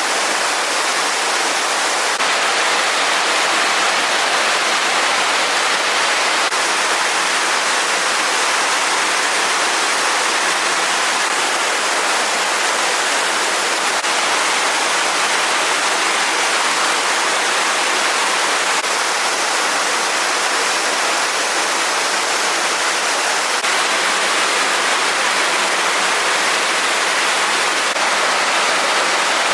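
Steady rush of a stream's running water, an even hiss with no breaks.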